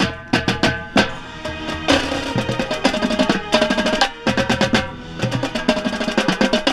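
Marching band playing: marching tenor drums (quads) play rapid strokes and rolls close by, over sustained brass chords.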